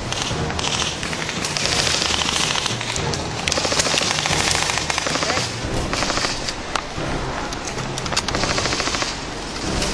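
Airsoft electric guns (AEGs) firing on full auto: several bursts of rapid clicking, each from under a second to about two seconds long, with short pauses between them.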